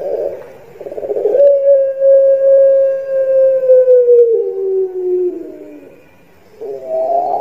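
Caged Barbary dove (puter) cooing its long call: a short rolling coo, then a long drawn-out note held for about four seconds that slides slowly lower with a step down in pitch partway through, and another rolling coo starting near the end.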